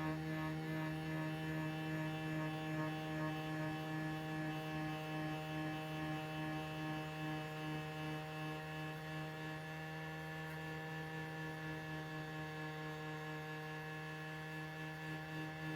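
Steady electric motor hum, with a slight wobbling pulse in the first few seconds, easing a little in loudness after about eight seconds.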